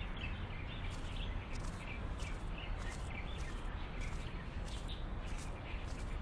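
Outdoor ambience: small birds chirping now and then over a steady low background noise.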